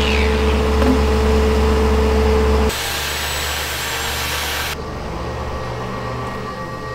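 A woodworking power tool running steadily with a held hum. About two and a half seconds in it cuts off abruptly to quieter machine noise, which drops again about five seconds in.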